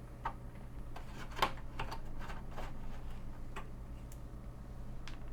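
Irregular light clicks and ticks of a screwdriver and small screws being worked out of a Commodore 128's metal RF shield, about a dozen in all.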